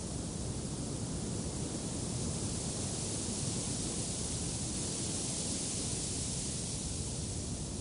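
Steady wind noise, an even rushing hiss and low rumble that swells slightly around the middle and eases again near the end.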